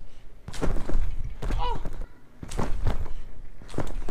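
Backyard trampoline being jumped on: repeated thuds of feet landing on the mat, roughly one every second or so, during flips.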